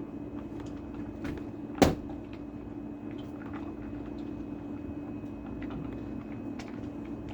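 Dogs eating from their bowls: faint scattered clicks of chewing and bowl contact over a steady low hum, with one sharp knock about two seconds in.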